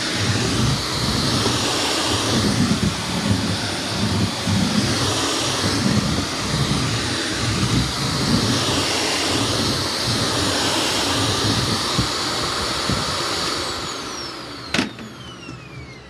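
Shark Navigator Lift-Away Professional upright vacuum cleaner running as it is pushed back and forth over a hardwood floor, its sound swelling and fading with each stroke about every two seconds. Near the end the motor winds down with a falling whine, and there is a sharp click.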